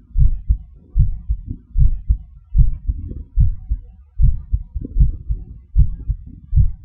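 Heartbeat: a steady lub-dub of paired low thumps, about 75 beats a minute.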